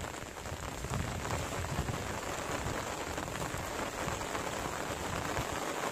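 Steady rain falling, a dense hiss of many small drop hits.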